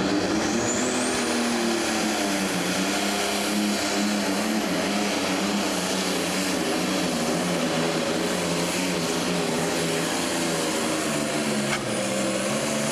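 Turbocharged diesel engine of a 10,000 lb pro stock pulling tractor running at full power under the load of a weight-transfer sled, with a high whine that climbs over the first second or two and then holds steady.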